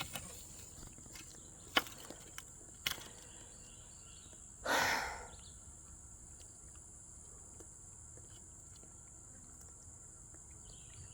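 Steady high-pitched drone of an insect chorus, with a few light clicks and a brief rustling swish about five seconds in.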